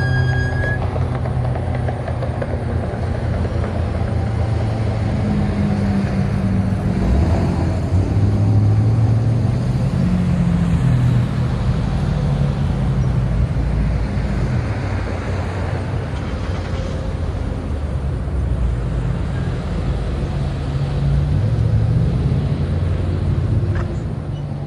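The last tones of a Federal Signal 2001-DC siren fade out in the first couple of seconds, leaving a steady low rumble of road traffic that swells at times as vehicles pass.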